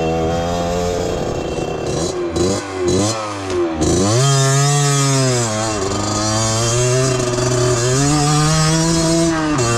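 Beta 50cc two-stroke motorcycle engine revving hard. A few quick pitch drops and climbs about two to four seconds in are followed by a sharp rise that holds high with small dips, falling off just before the end.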